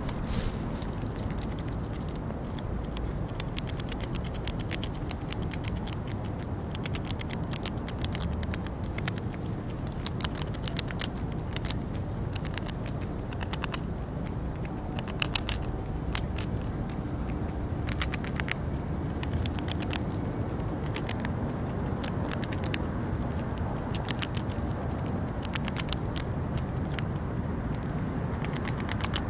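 A squirrel crunching a tortilla chip right next to the microphone: rapid, crisp, irregular crunching clicks, coming in quick clusters between short pauses, over a low steady rumble.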